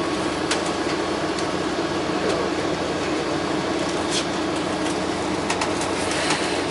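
Cabin hum of a New Flyer XD60 articulated diesel bus standing at a stop, its engine idling under the air-conditioning, with a few faint clicks.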